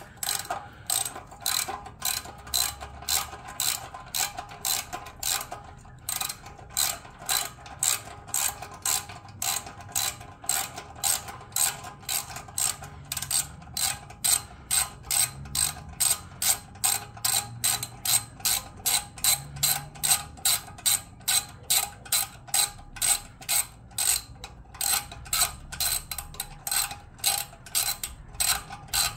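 Ratchet wrench clicking in a steady rhythm of about three clicks a second as it backs out a bolt on the catalytic converter's mounting bracket of a Yamaha MT-10.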